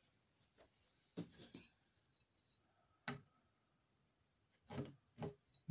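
Light knocks and clicks of aluminium crossbow parts being handled and fitted onto the riser's pins on a wooden workbench. There is a cluster about a second in, a single sharp knock about three seconds in, and two more knocks near the end.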